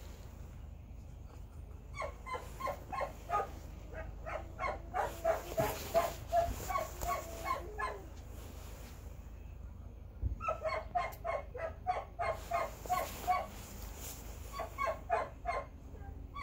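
A dog left alone by its owner barking in three runs of short, repeated yaps, about three a second, with brief pauses between the runs.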